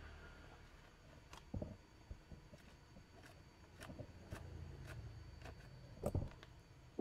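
Faint scattered clicks and light knocks from hands working a bolt in a scooter's plastic body panel. Two louder thuds come about one and a half seconds in and near the end.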